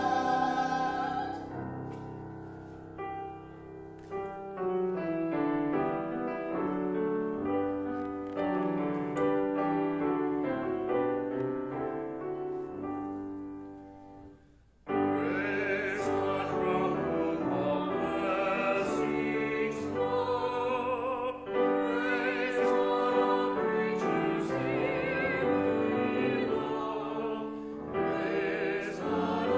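Grand piano accompanying classically trained singing. About a second and a half in the voices stop and the piano plays on alone. Near the middle the sound breaks off suddenly, then singing with a wide vibrato resumes over the piano.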